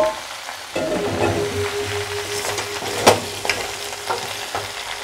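Raw mango pieces and jaggery sizzling in hot mustard oil in a kadai while a spatula stirs them, with a sharp knock about three seconds in.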